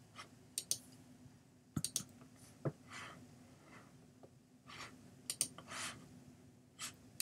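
Faint, scattered computer mouse clicks, a few seconds apart, as menu items are chosen.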